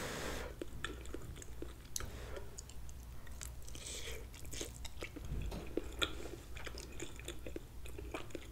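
A person chewing a mouthful of cooked cabbage and sausage, close to the microphone: soft, wet mouth sounds and many small clicks.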